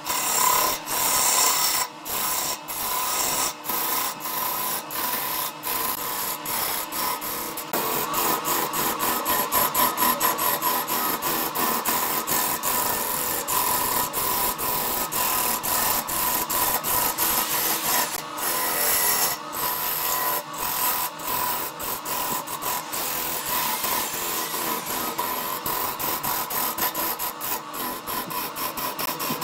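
A hand-held turning tool cutting a spinning multicoloured glued-up wooden blank on a wood lathe: a continuous rough scraping, peppered with rapid short ticks, over a steady whine from the running lathe.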